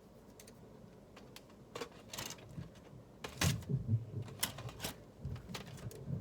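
Irregular clicks, taps and light knocks of kitchen handling while rubbing seasoning onto a chicken breast, with a cluster of louder knocks about halfway through.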